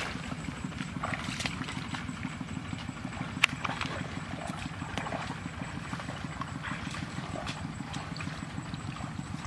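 A small engine running steadily with a fast, even low pulse, and one sharp click about three and a half seconds in.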